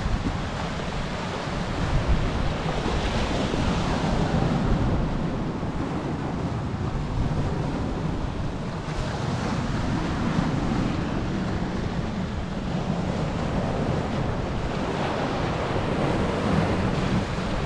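Sea surf breaking and washing over a boulder beach, a continuous rushing that swells and eases every six seconds or so, with wind buffeting the microphone underneath.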